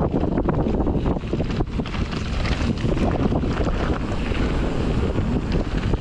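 Wind buffeting the microphone as a Fezzari La Sal Peak mountain bike descends a fast dirt trail, with a constant low rumble of tyres on the ground and many small clicks and rattles from the bike.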